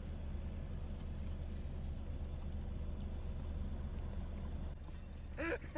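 Steady low hum of a car engine idling, heard from inside the cabin. Near the end, a short wavering voice-like sound rises above it.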